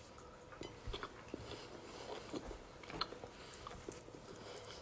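A person chewing a mouthful of crostata (shortcrust tart): faint, irregular small clicks and mouth sounds.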